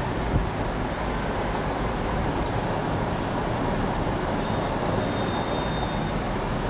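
Steady, even background rumble and hiss, with a brief low thump about half a second in.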